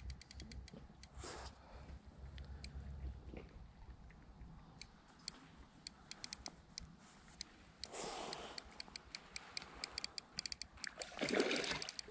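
Faint clicking and ticking from a spinning fishing reel and rod being handled, with a short splash of water near the end.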